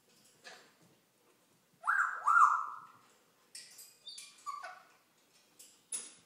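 African grey parrot calling: two loud rising whoops about two seconds in, followed by a run of short sharp clicks and squeaks.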